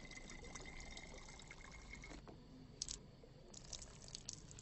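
A thin stream of liquid trickling into the neck of a glass beer bottle, faint and steady, stopping about two seconds in. A few faint clicks follow.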